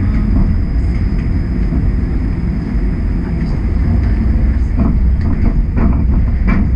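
Toronto streetcar running along the track, heard on board: a steady low rumble, with a few sharp knocks from the wheels and car body in the last couple of seconds.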